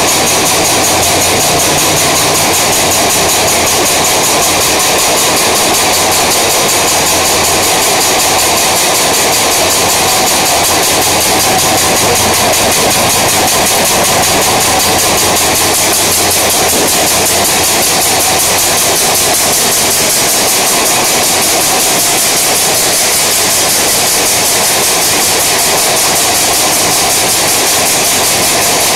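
High-speed exam-table paper roll machine running steadily: a loud, even mechanical whir and rattle from its rollers and drive, with a low hum under it that fades out about halfway through.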